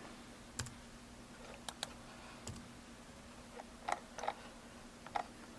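Faint computer keyboard key presses and mouse clicks, scattered singly about every second.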